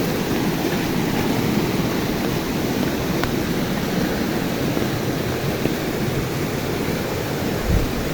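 Steady, loud rush of water, dense and low-heavy. A brief low thump near the end.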